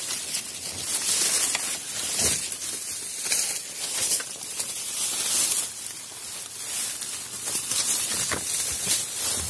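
Dry bamboo leaves and stems rustling and crunching as someone pushes on foot through a bamboo thicket, with a few sharper clicks.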